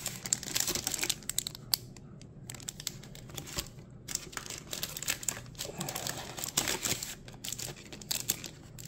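Crinkling of the foil and plastic wrappers on Pokémon card booster packs as they are handled, in clicking runs with short lulls about two and four seconds in.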